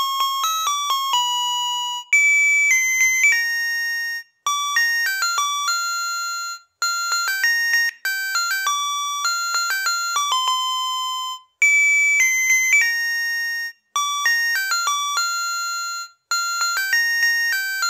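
Melody chip of a Kenko KK-8139TH voice calculator alarm clock playing its built-in alarm tunes as simple electronic beeping notes, one note at a time, in short phrases with brief breaks between them. Partway through, one tune gives way to another.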